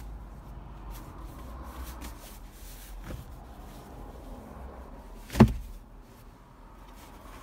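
Handling noise of a thick inflatable camping mat being unrolled on a foam pad: soft rustling of its fabric, then a single sharp thump about five seconds in, the loudest sound.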